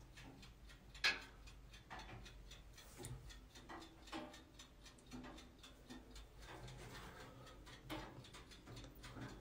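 Faint, irregular ticks and soft knocks, with a sharper knock about a second in and another near eight seconds.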